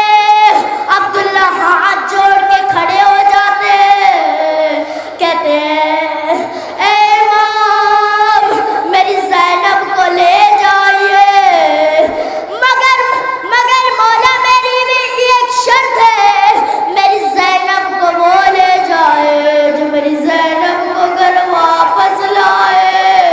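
A solo voice chanting a lament in long, high, drawn-out phrases with a wavering pitch, in the sung style of a Shia majlis mourning recitation. There are short breaks between lines.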